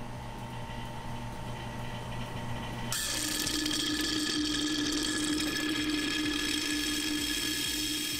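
Suction pump drawing old brake fluid out of the master cylinder reservoir through a thin tube, running steadily. About three seconds in the sound turns suddenly louder and hissier, with a steady whine, as the tube starts drawing air along with the fluid.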